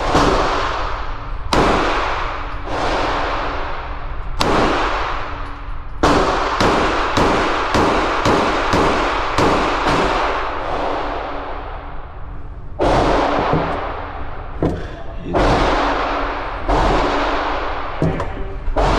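Gunshots echoing in an indoor shooting range, each with a long ringing tail. A few single shots come first, then a rapid string of about a dozen at roughly three a second around the middle, then slower single shots again.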